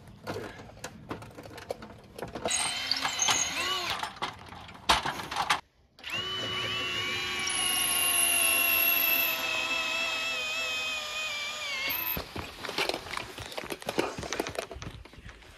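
Cordless drill driving a fastener into a solar panel's mounting: a short run, then a longer run of about six seconds whose pitch slowly falls. Scattered knocks and clicks of handling come before and after.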